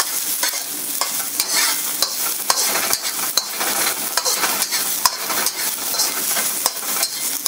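Chopped onion, garlic and ginger sizzling in hot peanut oil in a wok while being stir-fried with a metal spatula, which scrapes and clicks against the pan over a steady frying hiss.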